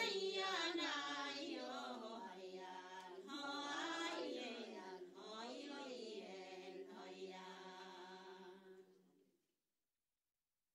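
Quiet background music of wordless chant-like singing, its pitch gliding slowly up and down over a steady low tone. It fades away and ends about nine seconds in.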